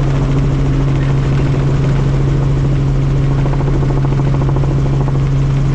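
Helicopter in flight, heard from on board: the steady, even drone of the rotor and engine.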